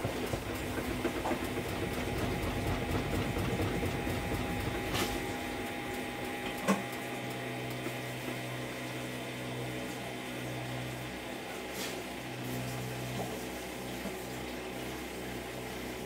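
Samsung front-loading washing machine running mid-cycle, a steady mechanical noise with a few short clicks. A low hum sets in about halfway through and cuts out briefly a couple of times.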